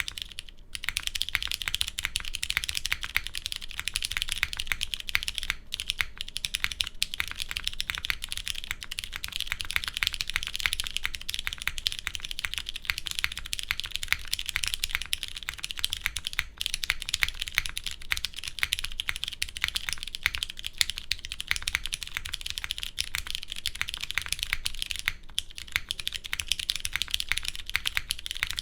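Continuous fast typing on a Kibou Fukuro mechanical keyboard with Cherry MX Brown tactile switches mounted in an aluminum plate and GMK ABS keycaps: a dense, steady stream of key clacks with only a few brief pauses.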